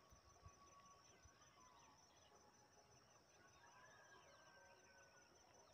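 Near silence: a faint, steady, high pulsing insect trill over rural morning quiet, with a few faint distant bird chirps.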